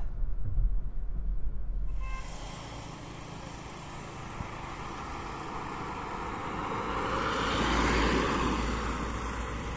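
Volkswagen Polo 1.0 TSI driving: a low in-cabin rumble for the first two seconds, then the car heard from the roadside, its engine and tyre noise building as it approaches, loudest as it passes about eight seconds in, then fading.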